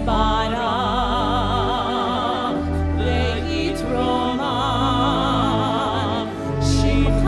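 A trained solo voice sings with wide vibrato over sustained low accompaniment, in an operatic, liturgical style. Phrases are held for a second or more, with a short break about two and a half seconds in and another near six seconds.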